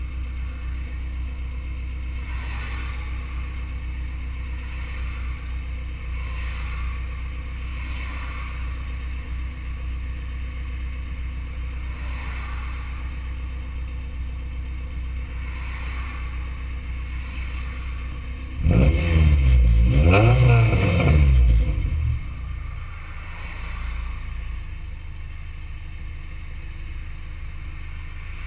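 Honda B16A inline-four idling through a custom side-exit exhaust (4-1 header, test pipe, resonator and SLP Loud Mouth muffler). About two-thirds of the way through it is revved up and down twice over about three seconds, much louder, then drops back to a steady idle.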